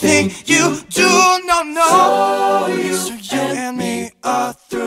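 Closing bars of an R&B song: a group of female voices singing in close harmony with little backing, breaking into a few short sung notes near the end and stopping abruptly.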